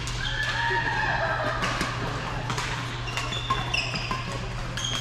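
Badminton play in a large echoing hall: repeated sharp racket hits on shuttlecocks and footfalls, with shoes squeaking on the court floor, over a steady low hum.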